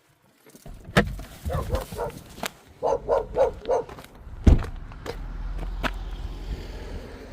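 Italian greyhound barking in short yaps, with a quick run of four in the middle, among a few sharp knocks. A steady low rumble sets in about five seconds in.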